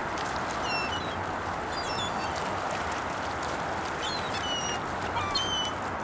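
Gulls calling overhead in short, high cries, in about four brief bouts, over a steady rushing background.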